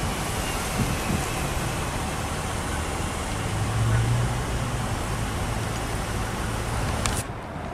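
Slow traffic: car engines idling and creeping past, a steady low engine hum over a hiss of road and wind noise. The sound cuts off abruptly near the end.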